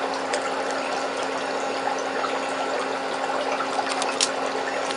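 Steady background hiss with a constant low hum, and a few faint crinkles of a small plastic bag of nail spangles being handled, most clearly about four seconds in.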